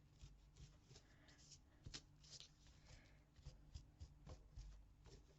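Near silence with faint rustles and a few light taps of paper and card being handled, the clearest about two seconds in and again past four seconds.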